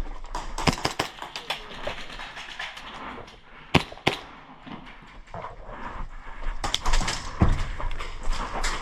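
Airsoft guns firing in scattered sharp cracks and short strings of clicks, with two loud shots about half a second apart near the middle.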